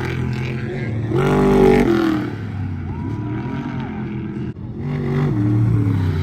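Off-road race truck engines at full throttle with the pitch rising and falling, swelling loudest twice as trucks pass, about a second in and again near the end.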